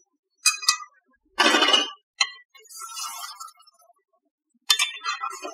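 Metal ladle clinking and scraping against a metal pot while stirring chicken curry: a few sharp clinks, a louder scrape about a second and a half in, and a cluster of clinks near the end.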